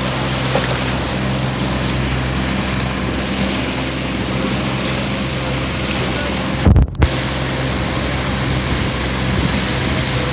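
Steady hum of a small motorboat's engine running alongside, under heavy wind noise on a phone microphone. A brief low thump with a momentary cut-out comes just before seven seconds in.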